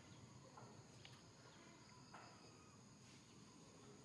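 Faint outdoor ambience: a steady high-pitched insect drone with a few short, faint chirps.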